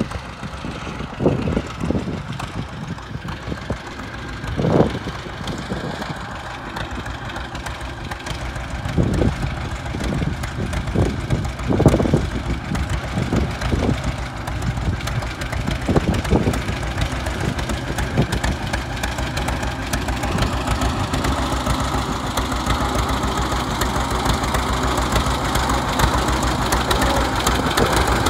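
1945 John Deere D's two-cylinder engine running with its steady, even popping exhaust as the tractor drives up. It grows louder through the second half as it comes close.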